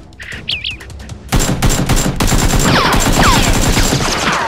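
Rapid automatic gunfire sound effects, a dense run of shots that starts about a second and a half in, laid over a Nerf blaster fight. Falling whistles are mixed in near the end.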